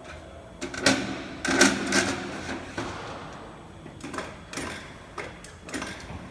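Roper Whitney CNC sheet-metal folder working, with irregular metallic clunks and clanks: a loud knock about a second in, a louder cluster at about a second and a half to two seconds, then lighter clicks and knocks.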